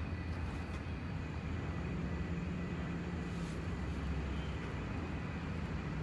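Steady low background rumble with a faint steady high tone above it, even in level throughout.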